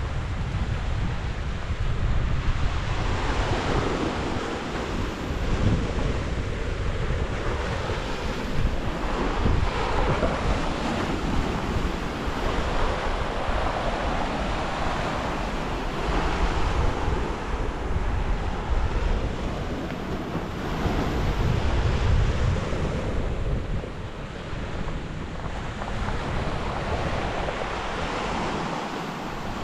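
Sea waves washing onto a shore in swells that rise and fall every few seconds, with wind buffeting the microphone as a low rumble.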